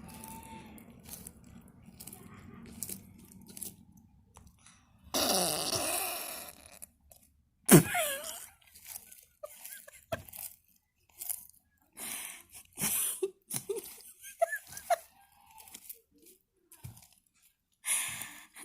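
Tortoise burping: a rasping burst about five seconds in that falls in pitch over a second and a half, followed about two and a half seconds later by a sharper, louder burst.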